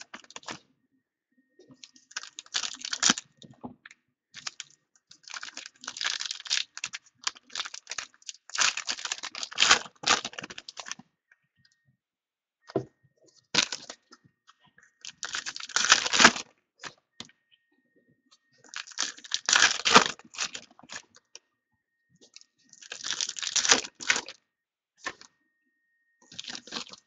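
Foil trading-card pack wrappers being torn open and crinkled by hand, in repeated crackling bursts of a second or two with short pauses between.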